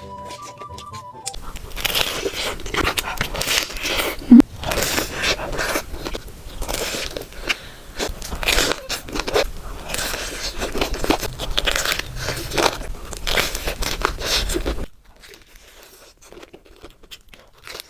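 Close-miked crunching of a person biting into and chewing a crispy fried mozzarella corn dog: a dense run of crackly crunches lasting about thirteen seconds, which drops away near the end. A short musical tone sounds right at the start.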